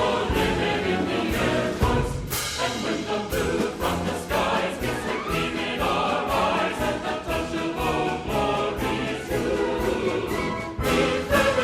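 Background music: a choir singing with orchestra, with a steady beat.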